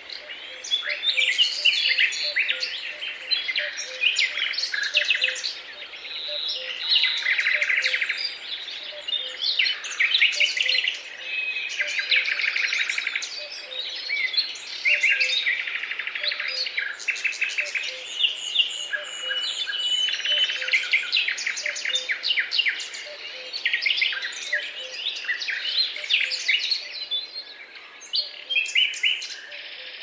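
Songbirds chirping and singing without a break, many short calls and quick trills overlapping.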